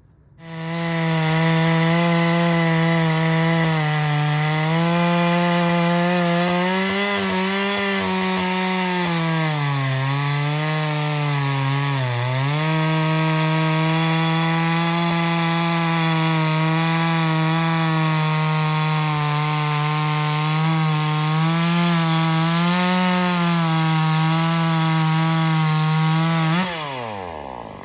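Ported Neotec NH843 chainsaw (a Husqvarna 543XP clone, two-stroke, base gasket deleted) running at full throttle while cutting through a log, its high, steady whine sagging in pitch a few times under load in the middle of the cut. Near the end the throttle is released and the revs fall quickly toward idle.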